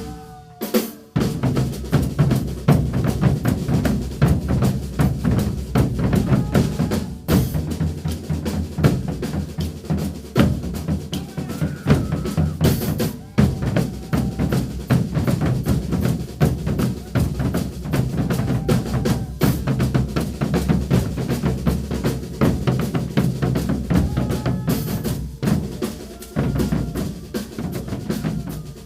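Percussion ensemble playing a caboclinhos rhythm from Pernambuco: deep bass drums under fast, dense snare strokes, continuous and loud.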